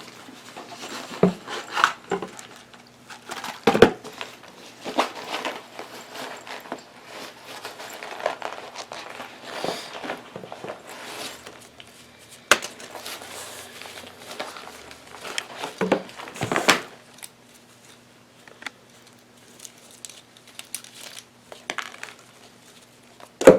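Plastic packaging crinkling and rustling as small camera accessories are unwrapped, with a few sharp clicks and knocks of items being handled. The rustling thins out in the last few seconds.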